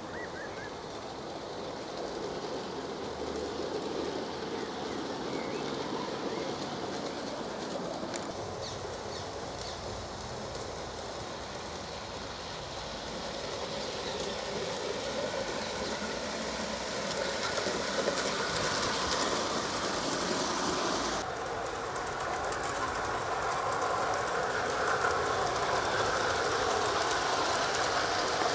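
Gauge 1 garden-railway model train running along the track, its wheels clicking over the rails, growing louder as it comes near; the sound shifts abruptly a little past two-thirds of the way through.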